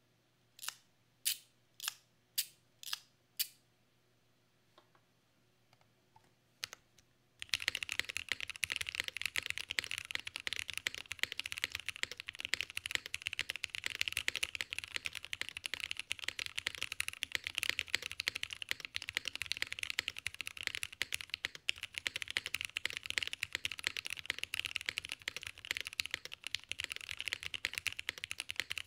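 Six sharp clicks about half a second apart, a few faint ticks, then from about seven seconds in fast continuous typing on a custom mechanical keyboard. The keyboard has lubed-and-filmed Nixie switches in a nylon plate with no foam, under GMK keycaps, and gives a full, hefty sound.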